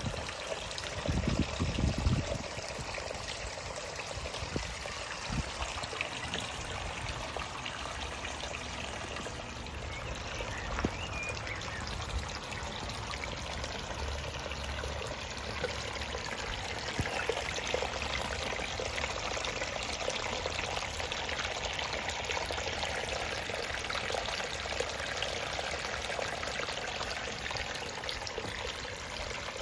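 Water from a gentle pondless waterfall running steadily over rocks, trickling and splashing down into a gravel-filled basin. A brief low rumble comes about a second in.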